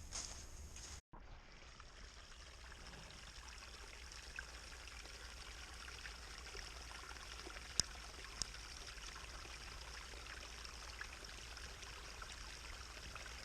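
A small stream running steadily, with two sharp clicks a little past halfway. Footsteps on the trail fill the first second, before a cut.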